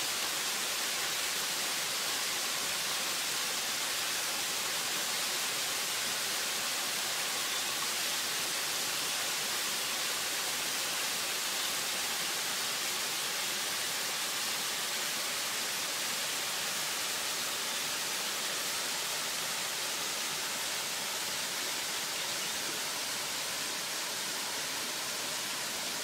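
Waterfall running at low flow, water splashing down over rocks: a steady, even rushing hiss, mostly high-pitched with little deep rumble.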